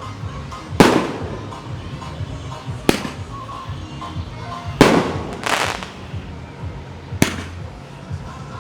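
Fireworks going off: a series of sharp bangs about every two seconds, each with a short ringing tail, over background music.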